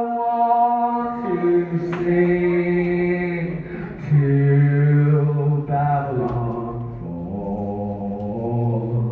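A singer's voice singing a cappella into a microphone, with no instruments: long held notes, each stepping to a new pitch every couple of seconds.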